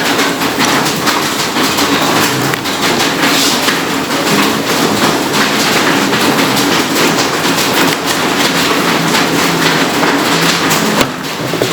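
Electrical wires being twisted together by hand into a rat-tail splice: a steady, dense scraping and clicking that dips briefly near the end.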